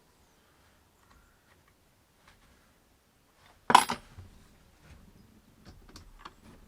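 A single sharp metallic clink of a small metal object, about four seconds in, followed by a few faint handling clicks.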